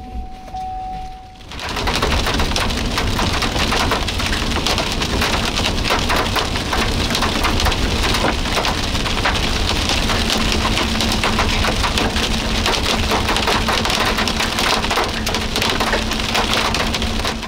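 Heavy rain pelting a moving vehicle's roof and windshield: a dense, steady patter that starts abruptly about a second and a half in and holds to the end.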